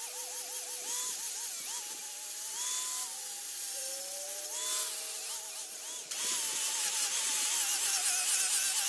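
Angle grinder with a 40-grit flap disc sanding a weathered white mahogany fence post. Its motor whine wavers up and down as the disc bites into the wood and eases off, over a steady hiss of abrasive on timber. It gets louder and harsher from about six seconds in.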